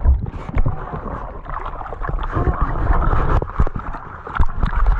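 Muffled water sloshing and gurgling around an action camera held under the surface, with many scattered knocks and clicks against its housing.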